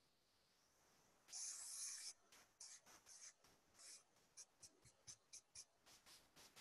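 Faint pencil strokes scratching on paper as someone draws: one longer stroke about a second in, then a run of short quick strokes, two or three a second.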